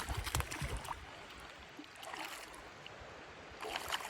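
Shallow, low-running creek trickling over rocks, with short rustling and knocking handling noises in the first second and again near the end.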